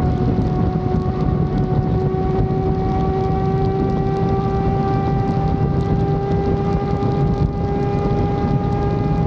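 Yamaha FZ6 Fazer 600's inline-four engine running at steady high revs under way, its tone creeping slowly upward in pitch.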